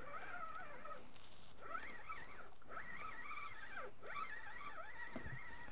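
A dog whining: a high, wavering whine that rises and falls in pitch, in several long stretches with short breaks.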